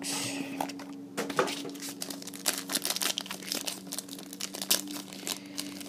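Foil trading-card pack wrapper being crinkled and torn open by hand, a dense irregular run of crackles and rustles.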